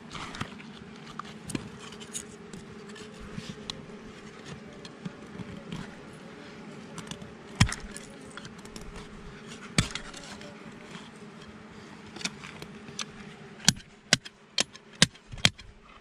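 A metal digging blade scraping and chopping into dry soil and stones, with sharp knocks now and then and a quick run of them near the end. A steady hum of bees runs underneath.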